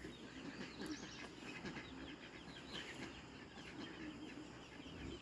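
Quiet farmyard background: faint bird chirps and distant chickens clucking, with light rustling.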